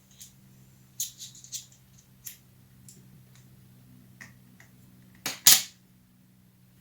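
Small clicks and taps of a driver bit being picked out of an iFixit toolkit, with one sharp, loud click about five and a half seconds in. A faint steady hum lies beneath.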